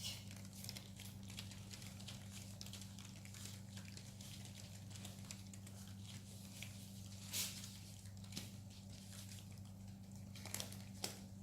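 Faint handling noises: scattered light clicks and taps, a sharper one about two-thirds of the way through, as a freshly poured canvas is turned by hand. A steady low electrical hum runs underneath.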